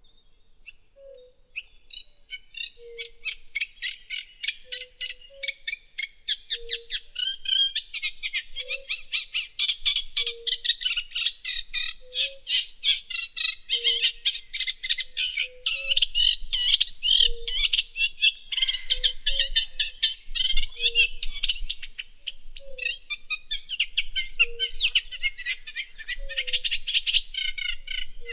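Wildlife chorus: many fast, overlapping chirping calls that build up over the first few seconds and then carry on densely. Under them, a short low hoot repeats every second or two.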